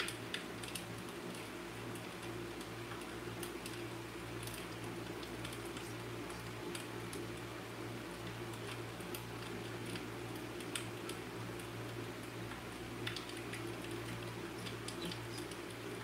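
Stylus tapping and sliding on a tablet's glass screen while writing: scattered light, irregular ticks over a steady low hum.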